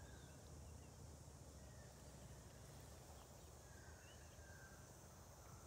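Near silence: faint outdoor ambience with a steady low rumble and a few faint, short bird chirps scattered through it.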